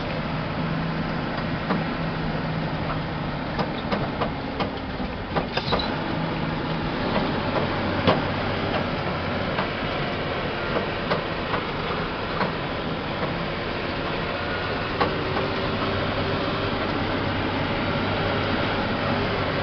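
Truck's diesel engine running in the cab while driving over a rough dirt road, with many short rattles and knocks from the cab and load on the bumps. The engine note shifts partway through.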